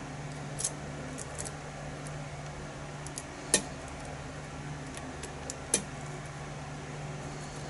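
Small metallic clicks and taps of lock-picking tools working in a pin-tumbler challenge lock: scattered light ticks, with two sharper clicks about three and a half and six seconds in.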